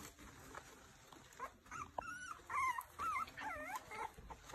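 Young puppies whining: a run of short, high squeaks that rise and fall in pitch, starting about a second and a half in.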